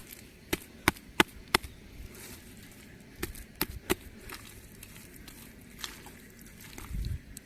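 A series of sharp clicks and knocks: about five in the first second and a half, a few more around three to four seconds in, then a heavier low thump near the end.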